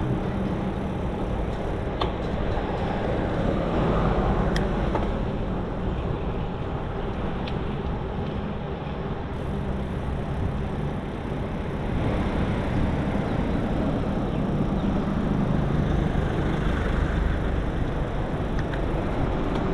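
Steady road-traffic noise heard from a moving bicycle: a continuous rush with the low hum of motor vehicles, louder at the start and again in the second half.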